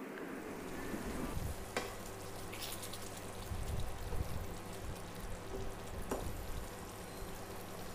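Thick chicken curry gravy sizzling and simmering at a low level in a non-stick kadai, with a wooden spatula stirring through it and giving a couple of light taps against the pan.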